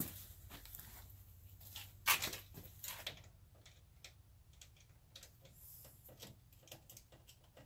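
Faint scattered clicks and knocks, the loudest about two seconds in, over a low steady hum.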